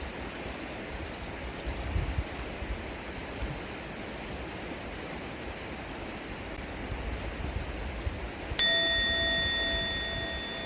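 Steady rush of river water. About eight and a half seconds in, a single bright bell-like ding rings out and slowly fades.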